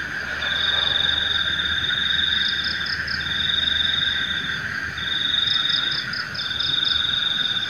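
Night chorus of frogs and insects: a steady, dense calling, over which a high trill comes and goes in bouts of one to two seconds.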